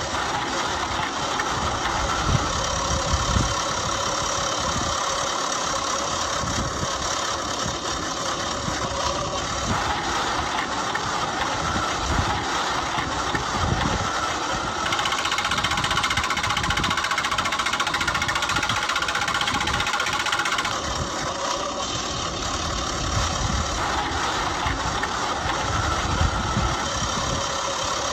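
Steady running engine sound, its tone shifting a few times.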